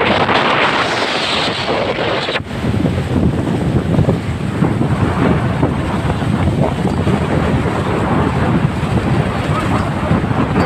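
Wind buffeting the microphone on a boat at sea, a dense rumbling noise throughout. A brighter rushing hiss covers about the first two and a half seconds, then cuts off suddenly.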